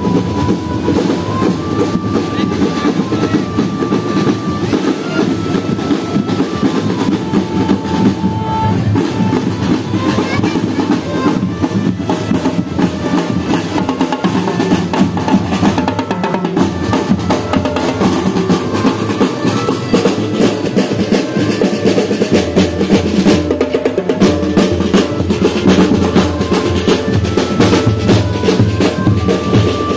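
School marching band (drumband) playing: snare and bass drums keep a dense, steady beat under a melody of held high notes that step up and down. The drumming grows busier and sharper about two-thirds of the way through.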